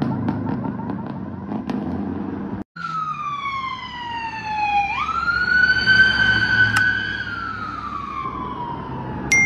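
Fire engine's siren wailing. Its pitch slides down, jumps back up sharply about five seconds in, holds, then slowly falls again. Vehicle engine noise fills the first few seconds before the siren comes in.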